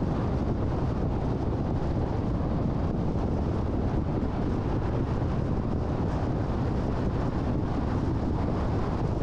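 Steady road and wind noise of a car driving, picked up by a dashcam microphone inside the car: a deep, even rush with no distinct engine note or other events.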